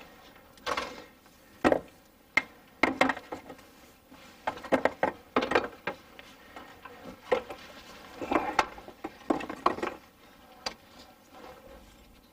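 Irregular knocks and clunks with short rustling and shuffling sounds, of a person moving about and handling things in a cramped space.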